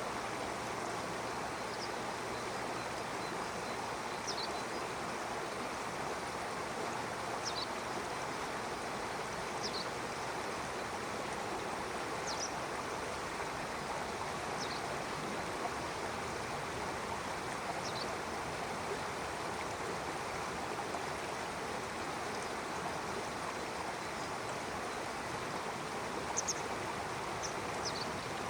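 Stream water flowing steadily over rocks, with a small bird giving short, high chirps every two or three seconds.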